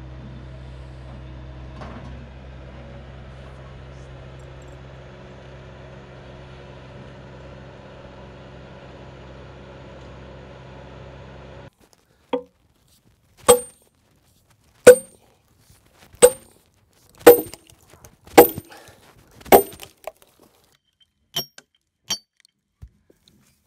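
A steady low engine hum that cuts off abruptly, then a hammer striking a steel wedge driven into an osage orange log: about seven loud, ringing metal-on-metal blows roughly a second apart as the log is split into bow staves, followed by a few lighter taps near the end.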